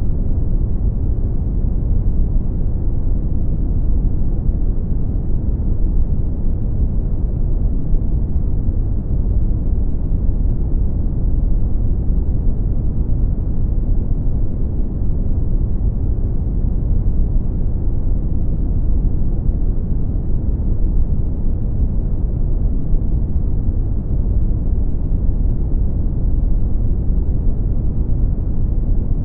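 Brown noise: a steady, deep rumbling hiss with its energy at the low end and little above the midrange, unchanging throughout.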